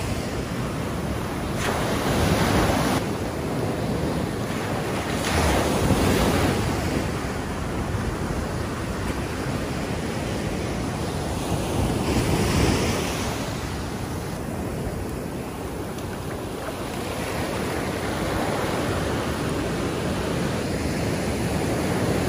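Ocean surf breaking and washing up a sandy beach, swelling louder with each wave, about three times over, under wind buffeting the microphone.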